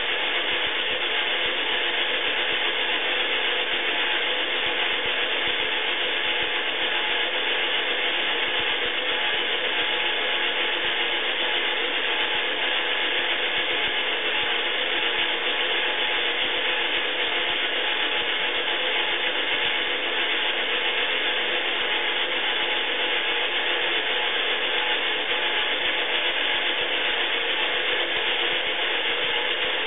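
Battery-powered Iriza toy washing machine running a wash cycle: its small electric drive runs steadily as the drum turns the laundry in water.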